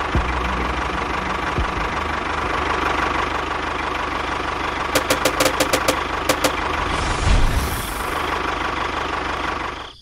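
Tractor engine running steadily at idle, with a run of about eight quick clicks a little past halfway; it stops abruptly at the end.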